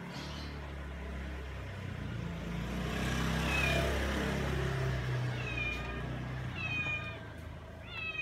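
A cat meowing about four times in the second half, short calls a second or so apart, over a low rumble that swells to its loudest around the middle and fades out.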